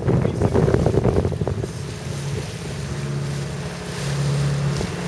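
Water rushing and splashing along a sailing yacht's hull with wind buffeting the microphone, gusty for the first second and a half. After that it settles into a steady low engine hum under the wash.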